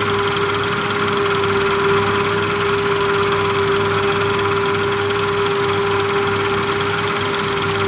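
Forage harvester running steadily while chopping maize for silage: constant engine and machinery noise with one unchanging humming tone.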